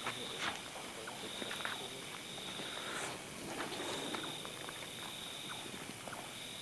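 Quiet night ambience: a faint high trill comes and goes, with small scattered rustles and taps of people shifting on bare ground.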